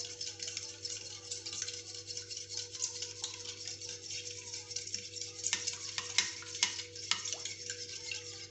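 Metal fork beating egg and milk in a ceramic bowl: quick, continuous clinking and scraping of the fork against the bowl, with a few louder clinks about five to seven seconds in. A steady low hum runs underneath.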